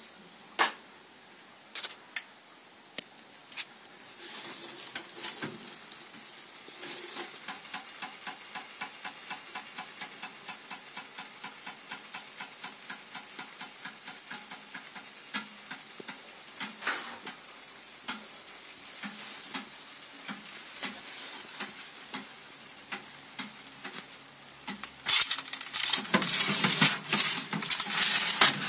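Apple strudel sizzling and crackling in a hot oven, a steady hiss with many quick little ticks. Near the end a much louder rustling and scraping as an oven-mitted hand handles the tray.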